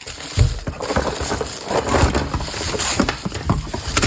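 Plastic packaging crinkling and toy pieces clicking and clattering as the contents of a Play-Doh playset are taken out of their box.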